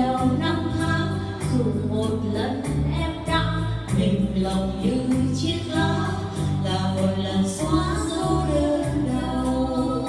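Two women singing a duet in Vietnamese through microphones, over a live electronic keyboard accompaniment with a steady beat.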